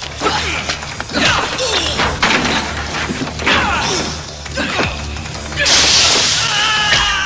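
Film fight sound effects over a music score: a run of whacks, thuds and crashes, with the loudest crash about six seconds in.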